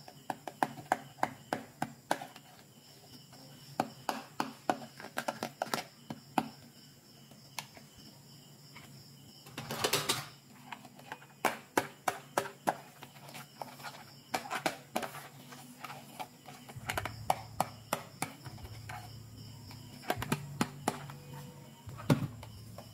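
Small plastic toy pieces being handled: irregular clicks and taps, with a louder, longer rattling burst about ten seconds in.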